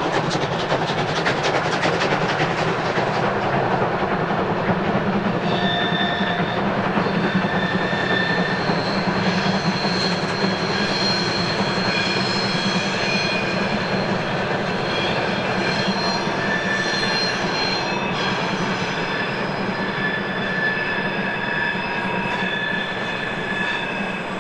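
Steam-hauled special train of DB class 01.10 locomotive 01 1104 rolling past: at first the locomotive's rapid exhaust beats over the running gear, then the coaches' wheels clattering by. From about five seconds in, high squealing tones from the wheels on the curve come and go.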